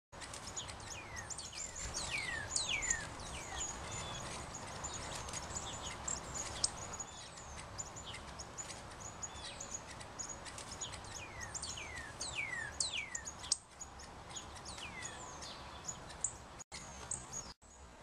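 Several northern cardinals calling together: a busy stream of short, high chirps and quick downward-sliding notes, overlapping almost without pause, thinning out near the end.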